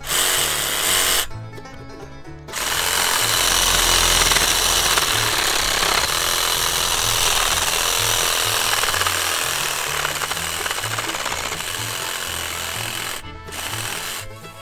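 Ryobi cordless reciprocating saw cutting through tree branches: a short burst at the start, then a steady loud run of about ten seconds that stops near the end. Background music with a bass line plays underneath.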